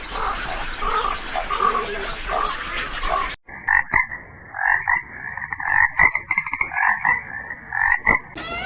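Frogs croaking in a chorus of short repeated calls. About three seconds in the recording changes abruptly to a higher-pitched, faster run of calls.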